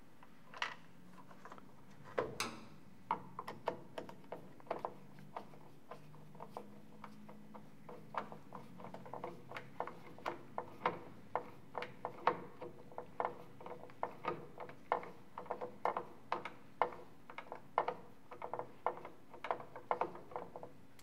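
Faint, fairly regular clicking, about two or three small clicks a second, as a screwdriver drives a screw back into the plastic crank handle of a wind-up radio.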